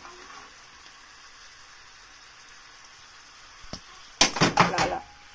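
Chicken pieces frying in a pan with a faint steady sizzle; about four seconds in, a metal spatula scrapes and clatters against the pan for about a second as the pieces are stirred.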